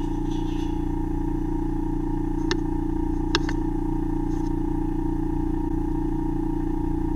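Ear microsuction unit running with a steady, unchanging hum, broken by two sharp clicks about two and a half and three and a half seconds in.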